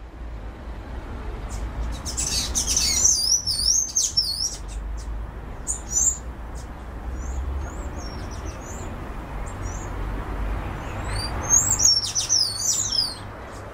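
Small birds chirping and twittering in quick high calls, busiest about two to four seconds in and again near the end, with single chirps between. A steady low outdoor rumble runs underneath.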